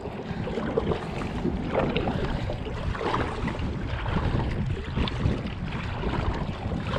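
Kayak paddle strokes: the blade dipping and pulling through lake water with repeated soft splashes, and water washing along the hull.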